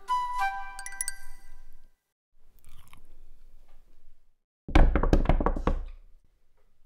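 A short chiming music phrase, then faint chewing, then a little under five seconds in a loud, rapid run of knocks or bangs lasting just over a second.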